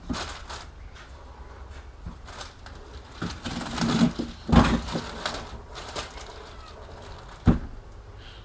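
Scattered knocks, clunks and rustling of parts being handled on a workbench during a driveshaft CV joint job, with the loudest thump about halfway through and a sharp knock near the end.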